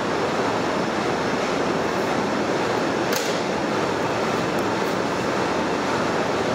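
Steady, even rushing noise with no let-up, with one short sharp click about three seconds in.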